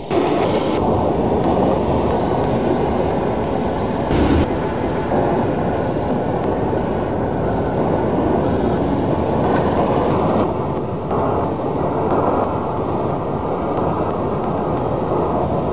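Underwater ship noise picked up by a hydrophone: a dense, steady rumble mostly below about 1 kHz. It comes as short spliced recordings that change abruptly about four seconds in and again about ten seconds in.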